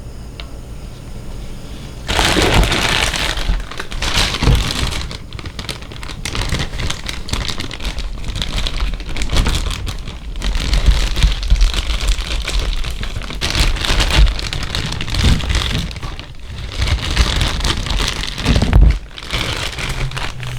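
Plastic packaging crinkling and crackling as a boxed toy figure is unwrapped, a dense, irregular crackle that starts suddenly about two seconds in.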